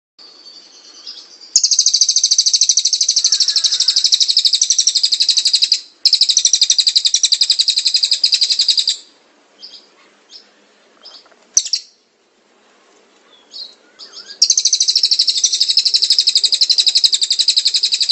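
Caged songbird singing loud, rapid, high-pitched trills: two long trills almost back to back, a few short chirps, then another long trill near the end.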